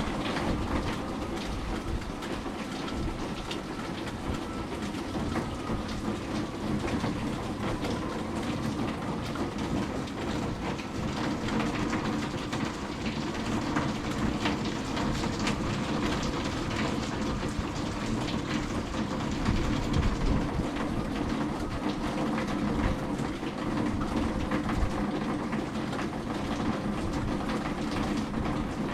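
Steady rain falling, with a low mechanical hum and a faint slowly sliding whine underneath that cut off near the end.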